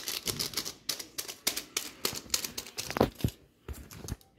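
Plastic instant-noodle packet crinkling as it is handled: a quick, irregular run of clicks and crackles that dies down about three seconds in.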